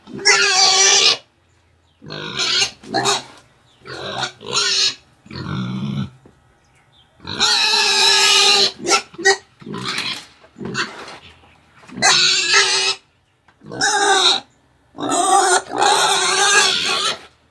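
A sow squealing loudly and repeatedly: about nine shrill squeals, each half a second to two seconds long, with short breaks between. It is her squealing to demand food.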